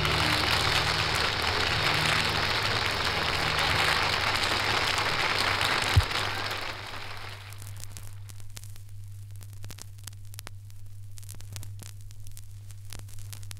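Studio audience applauding after a song, dying away after about seven seconds. It leaves the crackle of acetate-disc surface noise over a steady low hum, with a single low thump about six seconds in.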